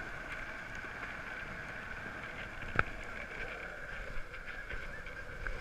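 Skateboard wheels rolling steadily over a concrete path, with a sharp click about three seconds in.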